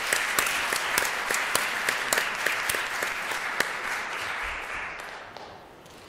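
Audience applauding, a steady patter of many hands clapping that fades out near the end.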